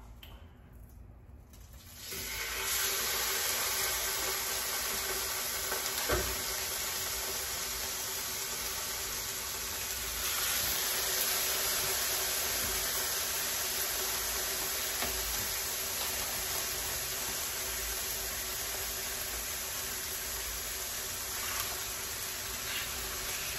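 Raw meat cuts sizzling in hot olive oil in a frying pan. The sizzle starts suddenly about two seconds in as the meat goes into the pan, then runs steadily.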